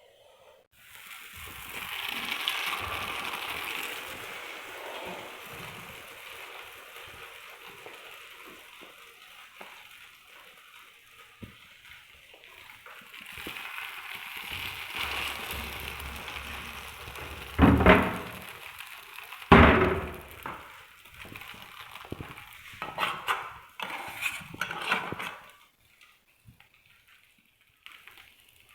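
Food sizzling in a pan, a steady hiss that fades near the end, with two loud knocks of a utensil or pan about two-thirds of the way through and a run of light clatters after them.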